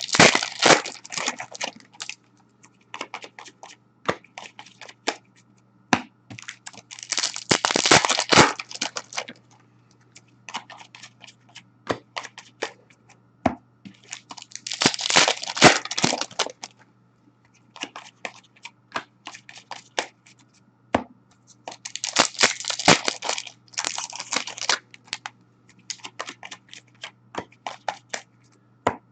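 Hockey card pack wrappers being torn open and crumpled, in crinkly bursts of about two seconds roughly every seven seconds, with light clicks and rustling between.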